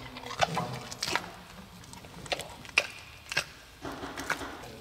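Giant panda eating a crumbly panda cake, biting and chewing with about six sharp, irregular crunches.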